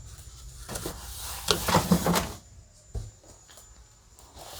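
Handling noise: rubbing and scraping for about a second and a half, then a single knock about three seconds in.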